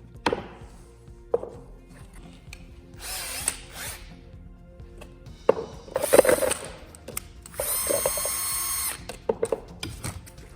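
A small electric motor whirs steadily for about a second and a half near the end, after a few knocks and rustling handling sounds, over background music.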